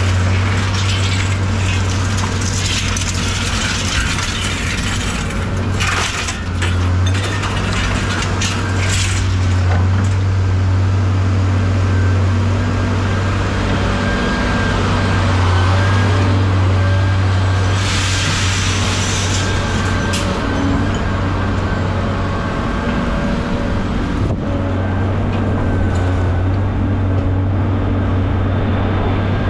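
A heavy vehicle engine running steadily with a deep drone, over irregular surges of rattling and rushing noise.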